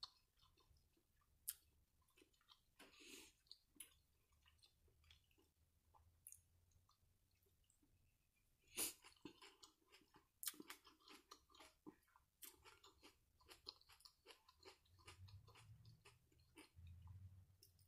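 Faint close-up chewing: wet mouth sounds and soft crunching as a person eats coleslaw, with irregular small clicks.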